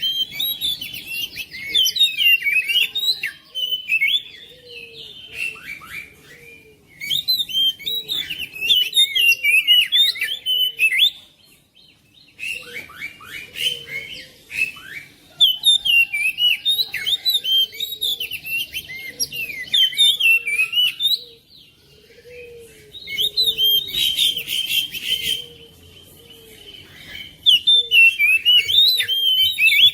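Oriental magpie-robin (kacer) singing a fast, varied song of quick whistled notes in bouts of several seconds broken by short pauses, with a softer, lower note repeating underneath.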